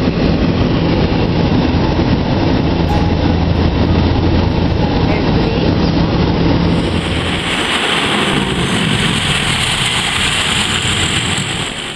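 Twin turboprop engines of a de Havilland Canada DHC-6 Twin Otter, first as a loud, steady cabin drone with a low hum on the landing approach. About seven seconds in the low hum drops away and a brighter, hissing engine noise takes over, cutting off abruptly at the end.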